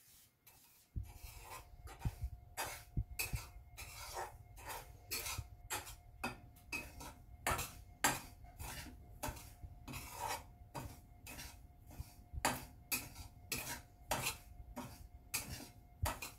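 A spoon stirring and scraping semolina around a small metal kadai, in quick repeated scrapes and clinks about two a second, starting about a second in: suji being roasted in ghee.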